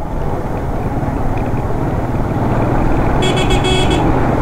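Suzuki GS150 motorcycle's single-cylinder engine running steadily as it rides, getting slightly louder. About three seconds in, a vehicle horn gives a quick stutter of short toots lasting under a second.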